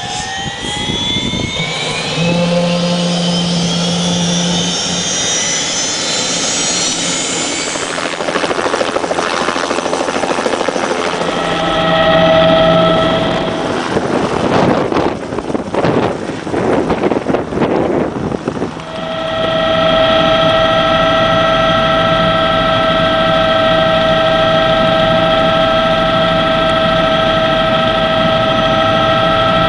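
Turbine helicopter starting up: the turbine whine rises steadily in pitch over the first several seconds over the beat of the spinning rotor. Through the middle comes gusty, fluctuating rotor and wind noise as a helicopter lifts off. From about two-thirds of the way in, a steady engine-and-rotor drone holds, as heard from inside the cabin in flight.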